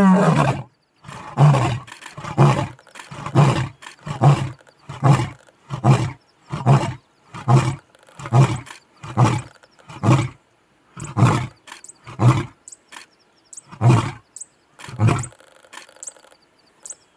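Lion roaring bout: one long roar at the start, then a run of about fifteen short, deep grunts, at first a little under a second apart, then more widely spaced, dying out near the end.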